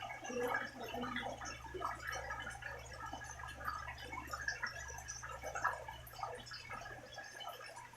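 Rain falling, with dense irregular drips and splashes of water and a bubbling, gurgling quality. A faint steady low hum runs underneath.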